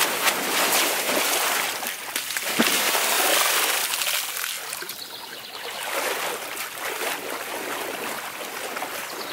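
Floodwater splashing and sloshing as a fat bike's wheels and a rider's legs churn through shallow water, heavier for the first few seconds and then a quieter, steadier sloshing of wading.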